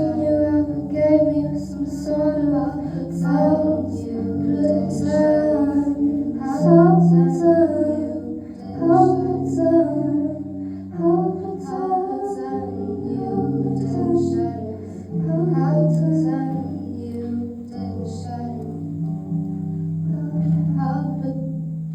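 Music: a song with a high sung voice carrying a melody over long held low notes.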